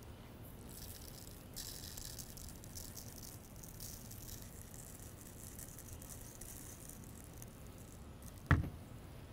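Faint rattle of coarse salt, pepper and garlic rub being shaken from a glass shaker jar onto a rack of beef plate ribs. There is one short thump near the end.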